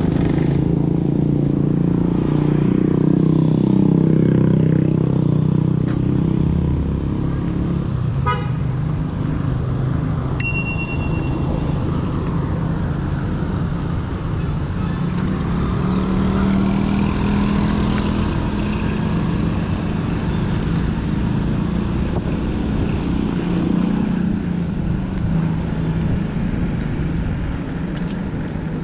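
Road traffic: vehicle engines and tyres running on a road, with a short high-pitched beep about ten seconds in.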